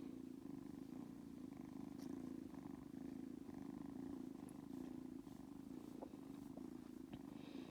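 Kitten purring steadily, a low, even rumble.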